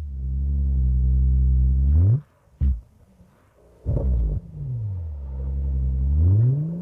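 The twin-turbo V12 of a Mercedes-Benz S65 AMG being revved while parked: revs fall back, hold low and climb again. About two seconds in the sound cuts off suddenly for about a second and a half, then comes back and repeats the same fall and climb.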